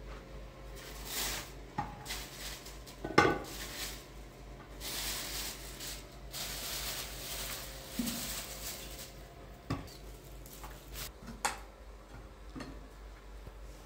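Dishes and utensils clinking and knocking at irregular intervals, with stretches of scraping or rustling between them; the loudest knock, with a short ringing, comes about three seconds in.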